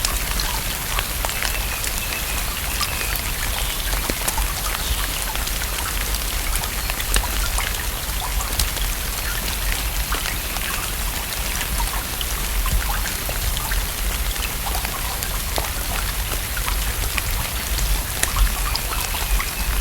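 Steady rain falling on a lake: an even hiss dotted with countless sharp ticks of single drops striking the water, over a low steady rumble.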